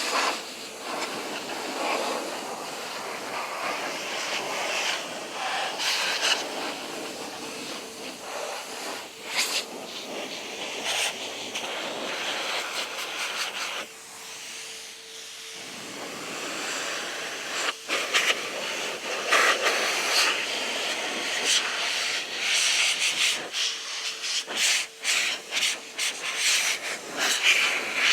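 Air blower drying off a motorcycle: a steady rush of blown air over a constant motor whine. The rush swells and fades as the air stream moves over the bike, and drops off briefly about halfway through.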